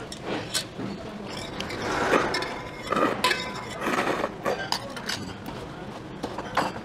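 Tableware clinking: utensils knocking against bowls and dishes at a meal, a run of short, separate clinks.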